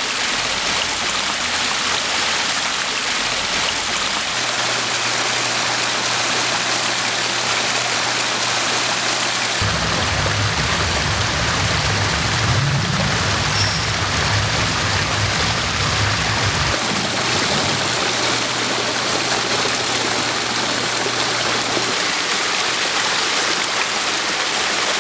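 Large multi-cascade stone waterfall running, water splitting over stepped flat stones and dropping into a pond with a steady, full rush.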